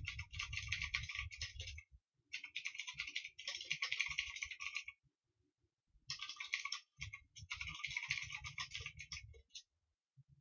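Computer keyboard being typed on in fast bursts of clicking keys, with short pauses between the bursts.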